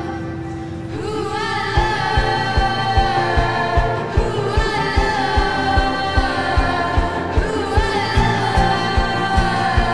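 Background music: a sung melody over held chords, with a steady low drum beat, about two and a half beats a second, coming in just under two seconds in.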